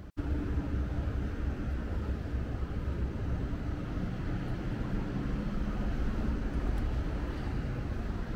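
Steady low rumble of street traffic, with a faint hum over it.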